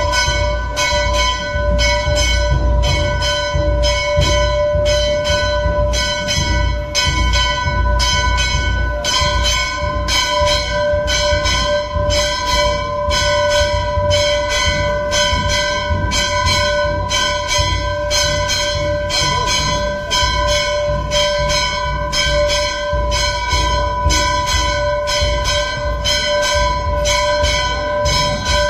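Temple bells ringing without pause in quick, even strokes, over a steady ringing tone and a deep pounding underneath, as at a Hindu aarti.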